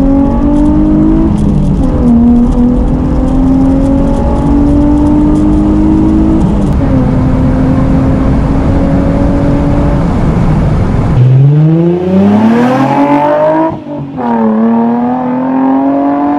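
Nissan 350Z's 3.5-litre V6 heard from inside the cabin under steady throttle, its note climbing slowly and dropping back twice at gear changes. About eleven seconds in it gives way to the car accelerating hard, the note rising steeply, dipping briefly at an upshift and rising again.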